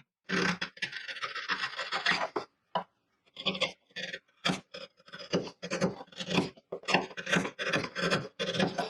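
Hand file rasping across wood, smoothing a chiselled slope into the bottom of a cut-out. One long scrape, then a quick run of short back-and-forth strokes, about two or three a second.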